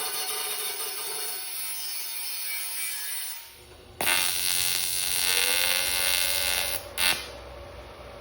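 Metalwork on 16-gauge sheet steel, cutoff-wheel cutting and MIG tack welding, heard as a harsh buzzing in two long stretches. There is a brief lull about three seconds in, the second stretch is louder, and a sharp burst comes near seven seconds.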